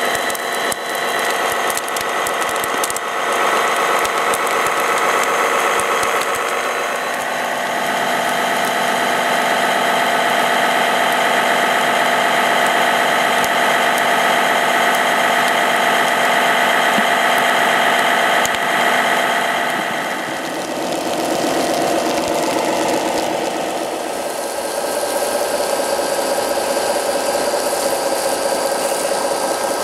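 RC model fire trucks running, a steady mechanical hum with several held tones that shifts in pitch and texture about 20 seconds in.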